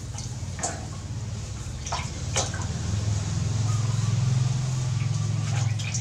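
Water splashing and dripping in an aluminium basin as a baby monkey is washed by hand, with a few sharp splashes in the first half. A low droning hum swells through the middle and is the loudest sound.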